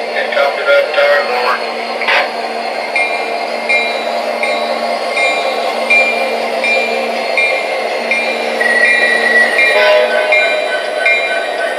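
Sound system of an MTH RailKing SD70ACe model diesel locomotive: a steady diesel engine drone, with a short ringing tone, like a locomotive bell, that starts about three seconds in and repeats about every three-quarters of a second. Near the end the ringing drops to a lower pitch.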